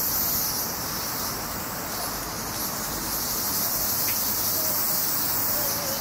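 A steady chorus of cicadas, a dense high-pitched buzzing hiss that holds at an even level.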